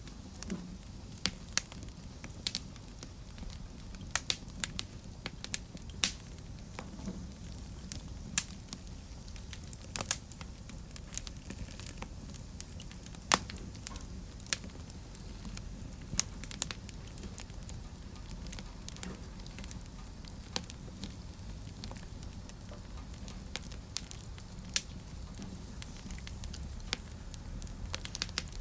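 Wood fire burning in a fireplace: a low steady rumble of flame with sharp, irregular crackles and pops, thicker in the first half and sparser later.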